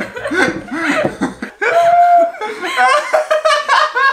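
A man and a woman laughing together.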